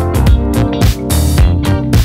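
Upbeat background music with a steady drum beat and guitar.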